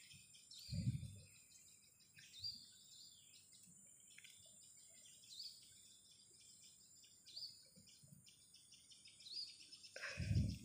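A bird repeating a short, faint, rising chirp about every second and a half. Two brief low, muffled thumps, about a second in and near the end, are the loudest sounds.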